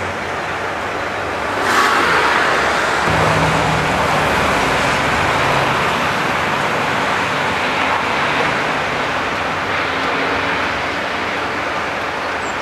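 Class 47 diesel locomotive with its Sulzer V12 engine passing close by at the head of a train of engineering wagons: the engine and the rumble of the train swell about two seconds in and then hold steady.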